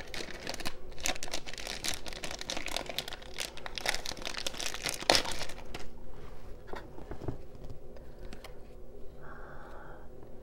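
Crinkly packaging being handled and unwrapped, crackling densely for about six seconds, then more sparsely.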